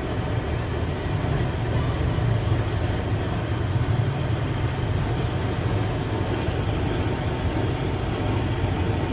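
A motor vehicle's engine running steadily, a constant low rumble.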